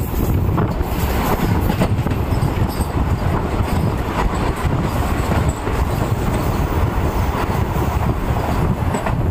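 Vande Bharat electric train passing close alongside on the next track, a loud steady rush of wheels on rail with light clicking, heard from another moving train.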